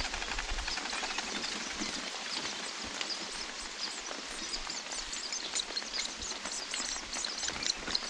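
Steady rain on leaves, with rapid high-pitched cheeping from about halfway through: long-tailed shrike nestlings begging as the parent rises to feed them.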